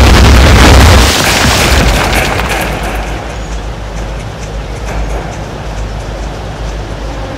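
Film explosion sound effect: a loud, deep boom for about the first second, then a noisy rumble that slowly fades and lingers.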